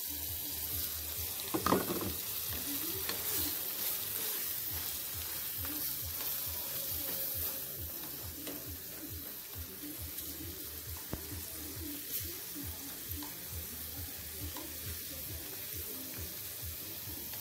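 Marinated shrimp sizzling and sputtering in a stainless steel pan over high heat, with a steady crackle, one knock about two seconds in, and chopsticks stirring the shrimp near the end.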